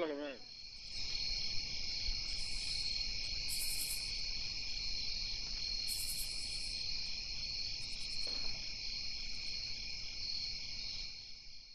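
Steady, high-pitched chirring of an insect chorus, with short higher trills every second or two, fading out at the end.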